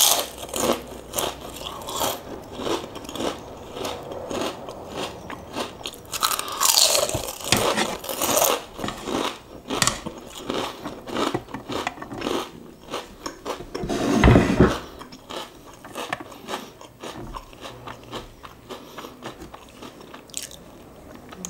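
Close-up crunching and chewing of a puffed keropok cracker: a loud first bite, then many brittle crunches as it is chewed.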